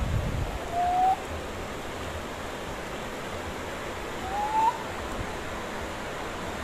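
Steady hiss of rain, with two short rising squeaks from a cloth rubbed across a wet car windshield, about a second in and again a little past the middle. A dull low thump comes right at the start.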